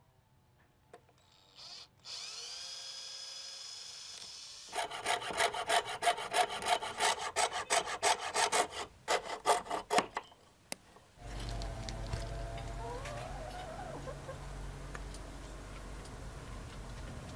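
A drill spins up with a rising whine and runs for a couple of seconds, boring a starter hole through a small wooden block. Then a thin saw blade cuts the wood in quick, rasping strokes for about six seconds and stops abruptly, followed by a low steady hum.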